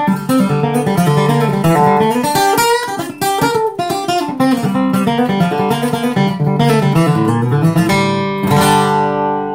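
Steel-string acoustic guitar flatpicked with a Bluechip pick: a quick single-note bluegrass melody, ending about eight seconds in on a chord left to ring.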